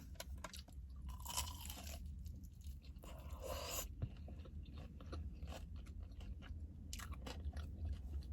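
Close-miked chewing of crunchy food, Wingstop fried chicken wings or Cajun corn, with many short crisp crunches and bites. A steady low hum runs underneath.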